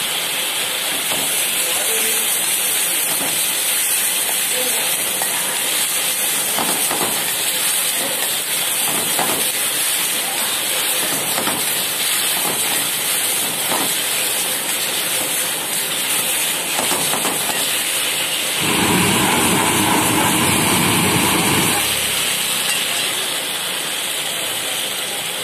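Chilli chicken stir-frying in a wok over a gas burner, a steady sizzling hiss, with the metal spatula scraping and knocking against the wok through the middle. Near the end a louder, deeper rushing noise comes in for about three seconds, then drops away.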